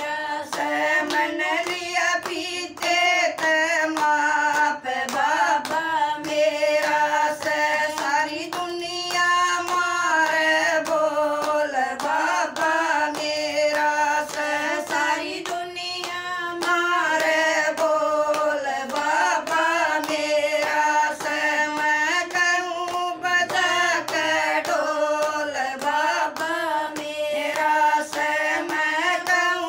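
Women singing a Haryanvi devotional bhajan without instruments, keeping time with steady hand-clapping.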